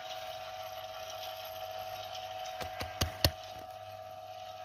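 A steady hum throughout, with a few short sharp clicks about two and a half to three seconds in, the last one the loudest.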